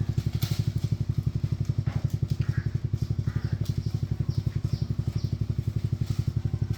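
Motorbike engine idling steadily with an even chugging beat, just got running again after giving trouble.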